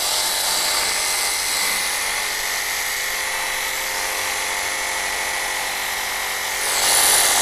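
Wosai MX-001 cordless battery pressure washer running: the steady whine of its small electric pump motor with the hiss of the water jet. The spray hiss grows louder near the end.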